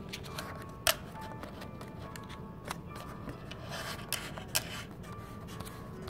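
Origami paper being folded and pressed into creases by hand against a wooden tabletop: rubbing and crinkling, with several sharp paper crackles, the loudest about a second in.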